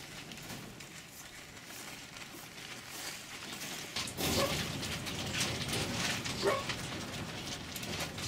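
Caged foxes giving short yips and whines, several times in the second half, over clicking and rattling of wire-mesh cages; the first half holds only quieter clicks and handling noise.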